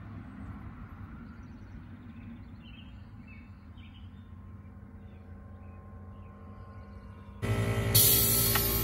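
A low steady hum with a few faint bird chirps. About seven seconds in, a much louder steady machine hum with several tones starts abruptly, and a short hiss follows half a second later.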